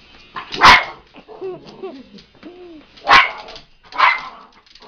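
Yorkshire terrier barking three times, sharp and loud, about a second in, then twice close together near the end, with a few short whines in the gap between.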